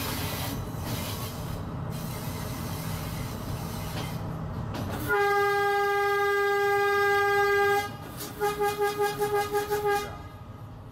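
Train running with a steady rumble heard from the driver's cab; about five seconds in, the locomotive horn sounds one long blast of nearly three seconds, then a quick string of short toots. The horn is a warning to animals running on the track ahead.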